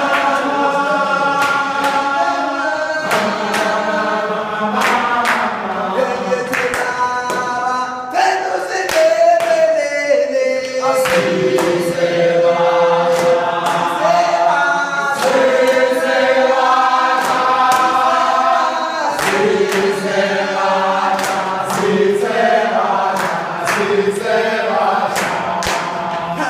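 A group of voices singing together in chorus: one sustained, multi-part song, with sharp percussive hits scattered through it.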